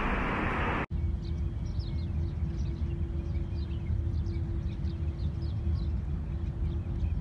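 Under a second of dense traffic-like street noise cuts off abruptly. Outdoor ambience follows: a low steady rumble with a faint steady hum, over which small birds chirp in short falling chirps, a few each second.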